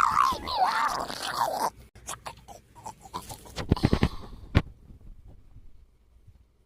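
A dog whining in wavering, bending pitches for about the first second and a half, followed by scattered clicks and crunching sounds that end in one sharp click.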